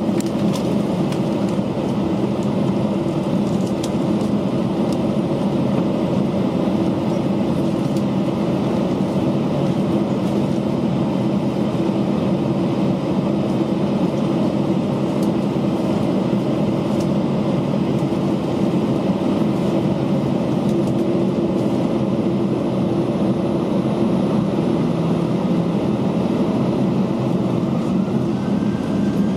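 Steady cabin drone of an Airbus A320 taxiing, its CFM56 jet engines at idle. Near the end a rising whine begins as the engines start to spool up.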